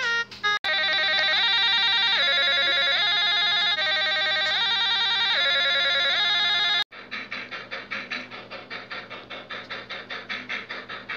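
An electronic trilling tone, like a telephone ringer, stepping up and down between a few notes; about seven seconds in it cuts off sharply and a fast pulsing sound, about five pulses a second, takes over.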